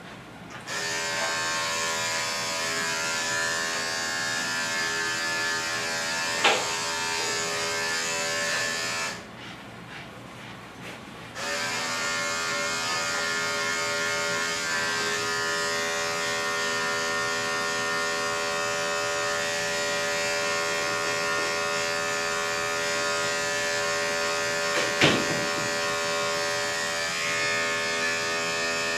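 Andis five-speed electric dog grooming clippers running with a steady hum. They are switched off about nine seconds in and back on about two seconds later. Two sharp clicks are heard, one partway through and one later on.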